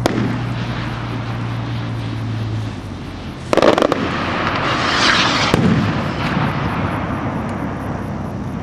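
Hand-made skyrockets: a sharp bang as a rocket's shell bursts, with a steady low hum that stops a little under three seconds in. About three and a half seconds in comes a loud sudden burst of noise, then a long hiss of another rocket going up, with a crack near the middle.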